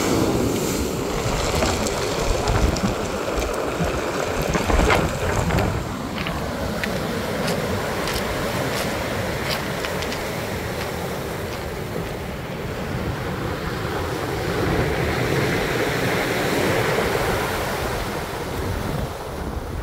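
Rough sea surf breaking and washing up a pebble beach, with strong wind buffeting the microphone.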